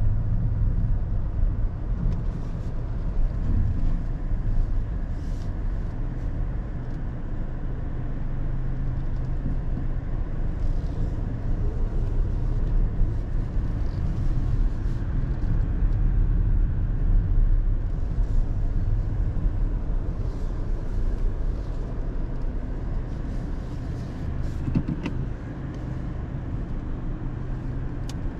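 2022 Mazda3's 2.0-litre SKYACTIV-G four-cylinder engine running at low speed, with a steady low rumble of engine and tyre noise. A few faint clicks come through now and then.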